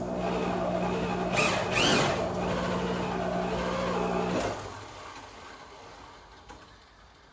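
Power drill driving a Stripmeister wire stripper through heavy 3-gauge wire, the motor running steadily under load with a brief squeal about two seconds in. The drill stops about four and a half seconds in and the sound dies away.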